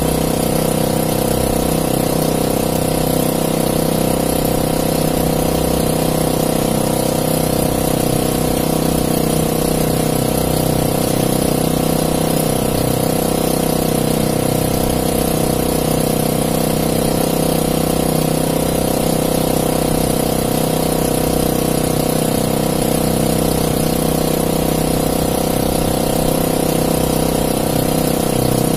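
Small gasoline engine aboard an outrigger fishing boat running steadily at a constant speed, a continuous even hum with no change in pitch.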